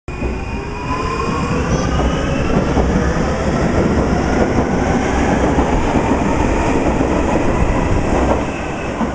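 Munich U-Bahn electric train accelerating away from the platform: the whine of its electric traction drive rises in pitch in several tones over a steady rumble of wheels on rail.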